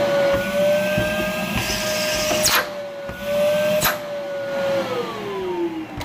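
Bosch Powermax 1700 W canister vacuum cleaner running with a steady whine, then cut off about five seconds in, its pitch falling as the motor winds down. Two sharp clicks come in the middle. The motor has been rebuilt with a new commutator and brushes, and it runs with not much noise.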